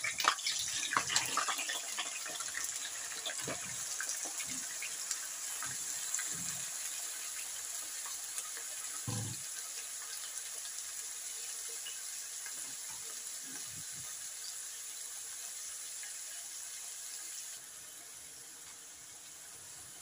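Frozen bitter gourd (karela) slices sizzling in hot oil in a frying pan: small knocks and crackles in the first couple of seconds as the last slices drop in, then a steady sizzle with one knock about nine seconds in, the sizzle easing a little near the end.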